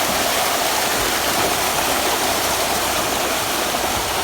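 Steady rush of running water, an even noise without breaks.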